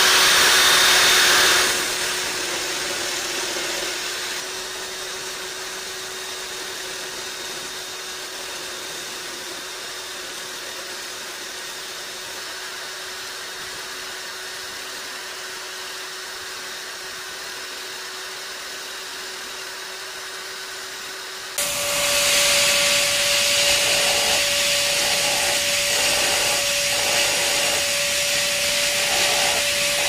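A small electric power tool running with a steady whine. It is loud for the first couple of seconds, then quieter for a long stretch, then jumps louder again about two-thirds of the way through, with a higher whine and an uneven pulsing in the noise.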